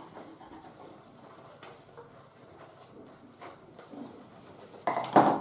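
Scissors snipping through a sheet of oil-soaked paper in faint, scattered cuts, with coloured pencils scratching on paper. A short, louder sound comes about five seconds in.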